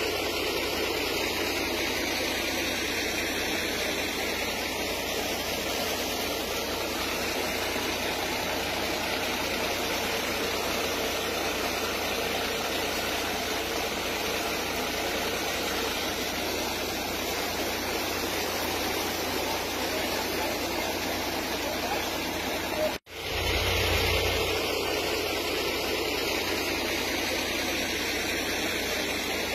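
Floodwater rushing down a street, a steady wash of noise. It cuts out for an instant about two-thirds of the way through, then resumes.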